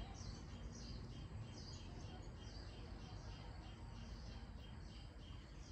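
Garden ambience: a steady run of short high chirps, about three a second, over a low rumble.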